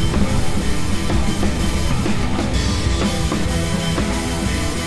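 Rock music with a drum kit playing a steady beat.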